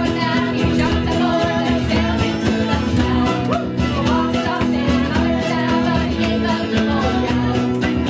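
Live band playing a song on guitars and fiddle, with women singing.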